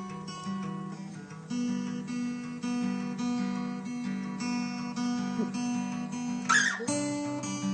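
Acoustic guitar playing a repeating picked chord pattern. The chord changes about a second and a half in and again near the end, with a brief scrape just before the last change.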